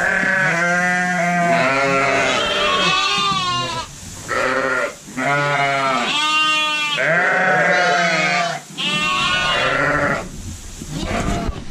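A flock of ewes and lambs bleating all at once, deeper and higher calls overlapping one after another. The ewes and lambs are calling to find each other after being reunited.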